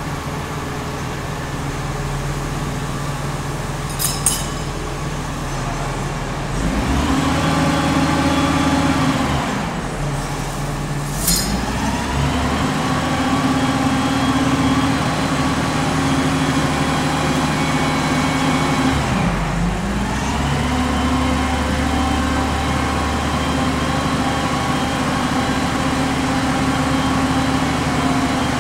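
Truck-mounted mobile crane's diesel engine running, revving up about six seconds in, easing off briefly, then revving again and holding high as the crane works the lift, with a short dip about two-thirds of the way through. Two brief sharp sounds stand out, one before the first rev-up and one just before the second.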